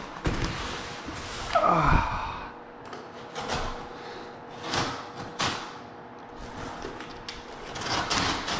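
Cardboard of a heavy flat-pack cabinet box being pried and torn open by hand: irregular scraping, ripping and knocking, with a strained grunt about two seconds in.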